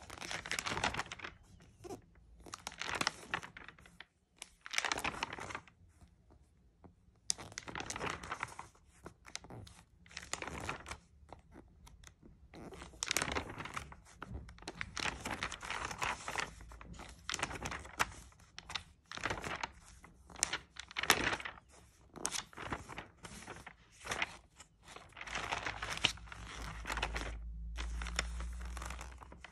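Glossy paper pages of a sticker album being turned and handled: rustling of paper in many separate strokes, one or two a second, with short pauses between them. A low rumble comes in for a few seconds near the end.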